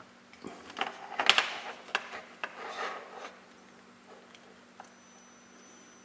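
A hand handling a small portable LCD monitor: rubbing and several clicks as its power button is pressed, in the first half, over a faint steady hum. A faint high whine comes in near the end.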